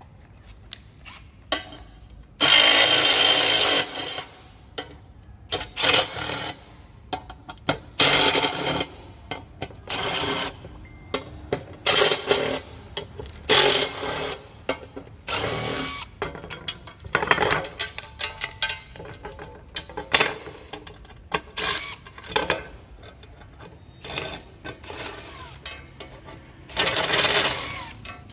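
Makita TD111D 12V cordless impact driver driving hex-head screws into a rusty steel plate: a run of short bursts of the driver spinning and hammering, the longest about two and a half seconds in, with quieter gaps between.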